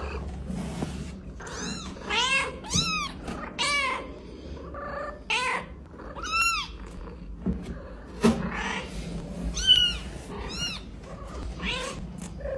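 A young kitten mewing repeatedly: about eight short, high-pitched cries that rise and fall in pitch. These are the distress calls of a newborn kitten lifted away from its mother.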